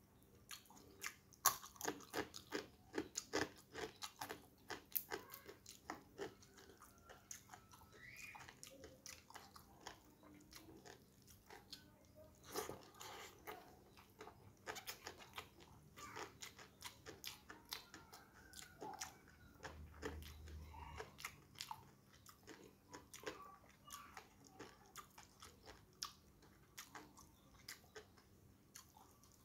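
A person chewing and crunching a mouthful of rice, spinach and crispy fried salted-fish cracker close to the microphone, with many small crisp crunches at an irregular pace.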